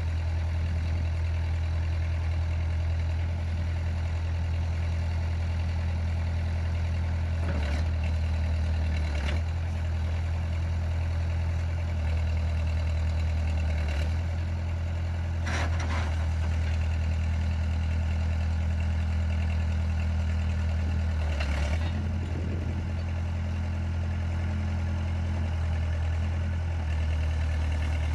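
1977 Case 580C-CK loader backhoe's four-cylinder diesel engine running steadily, with a few brief clanks from the machine.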